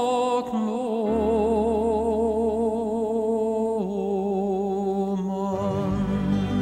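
Music: a tenor holds a long sung note with vibrato over soft accompaniment, stepping down to a lower note about four seconds in. A low bass note comes in near the end.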